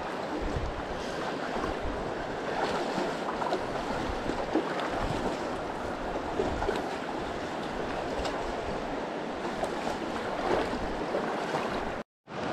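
Virgin River water rushing steadily over rocks in the Narrows, a constant splashing hiss. The sound cuts out for a moment near the end.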